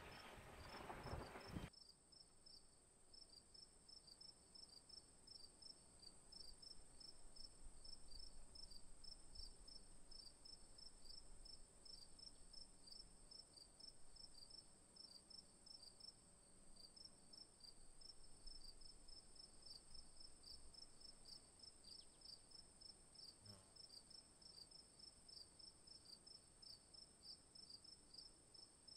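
Faint night ambience of crickets chirping in a quick, even rhythm over a thin, steady high tone. A louder sound cuts off about two seconds in.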